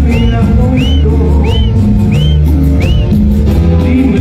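Loud dance music played over a sonidero sound system, with a heavy bass line and a short high whistle-like chirp repeating about every two-thirds of a second until about three seconds in.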